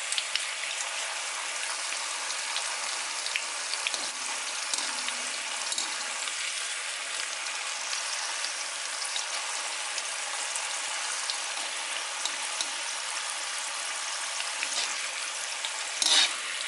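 Green chillies and curry leaves sizzling steadily in hot oil in a wok, with fine crackling, while a wire skimmer stirs them; they are nearly done frying. A brief louder sound comes near the end.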